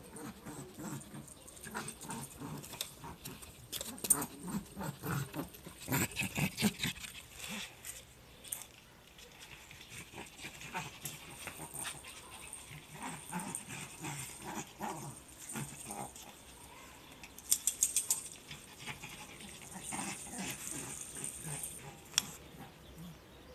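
A small dog being walked on a leash, with irregular scuffs, clicks and knocks. The louder clusters come about four to seven seconds in and again near eighteen seconds in, with one sharp knock near the end.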